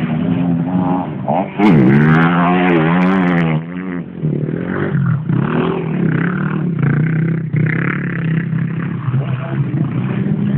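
Off-road engines of quad bikes and dirt bikes on a motocross track revving, pitch rising and falling as they work the jumps. The loudest, fastest-warbling revs come about a second and a half in and last about two seconds.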